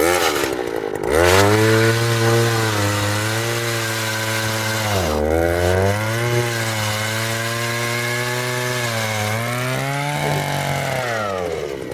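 Power ice auger drilling a hole through lake ice: the motor comes up to speed about a second in and runs steadily, its speed sagging briefly near the middle as the bit bites, then winds down near the end.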